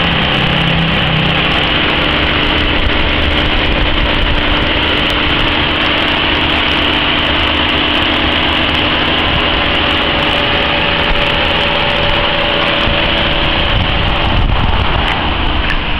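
Nissan Sentra's four-cylinder engine idling steadily, heard up close in the open engine bay, with a steady high hiss over it.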